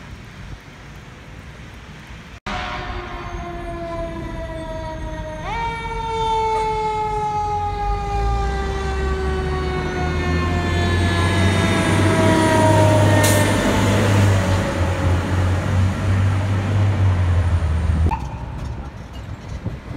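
Fire ladder truck's mechanical siren coasting slowly down in pitch, wound back up sharply about five seconds in, then winding down slowly again as the truck passes. A deep diesel engine rumble grows under it and stops abruptly near the end.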